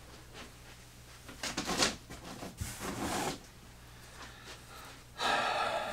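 Rustling and scraping as wooden kit parts are rummaged through and pulled out of a cardboard box, in three short bursts, the last and loudest about five seconds in.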